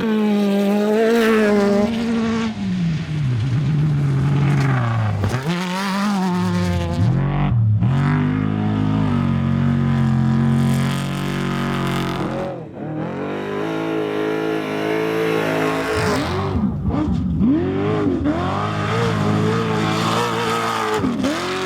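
Off-road race cars' engines running hard, the pitch repeatedly climbing and dropping as they rev and shift. In the last few seconds several rise-and-fall sweeps come as cars pass by.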